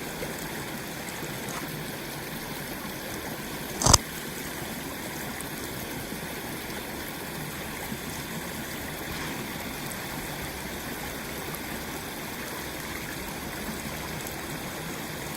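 Steady trickle of water running through the breach punched in a beaver dam. A single short knock about four seconds in.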